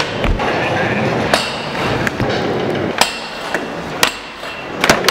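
Skateboard tries at a crooked grind fingerflip on a metal flat rail: about six sharp clacks and knocks as the board hits the rail and slaps the concrete floor, with wheels rolling in between.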